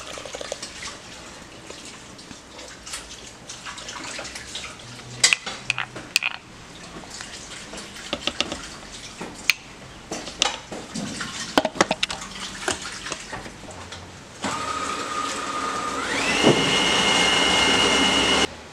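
Foamy yeast mixture poured into the plastic bowl of a food processor, with scattered clinks of handling. About 14 seconds in, the food processor's motor starts with a steady whine, then steps up to a higher, louder pitch about two seconds later as it begins mixing the bread dough.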